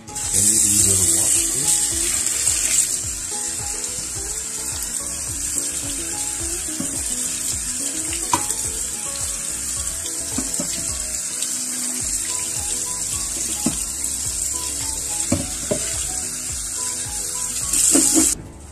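Kitchen tap running full into a stainless steel pot of broccoli and cauliflower florets as they are rinsed and swirled. It is a steady hiss that starts suddenly at the beginning and cuts off suddenly near the end, with a few light knocks along the way.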